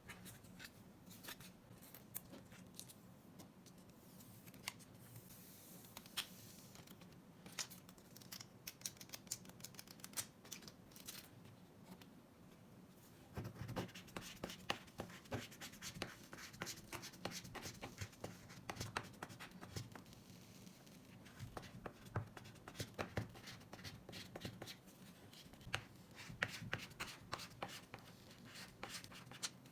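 Light clicks, taps and scratching strokes on an iPad screen and its screen protector film, growing busier about halfway through.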